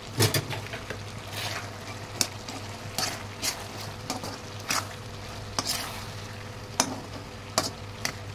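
A spatula stirring boiled black chickpeas with chopped onion and green chilli in a hot iron kadhai. Irregular scrapes and knocks of the spatula on the iron sound over a steady sizzle of frying.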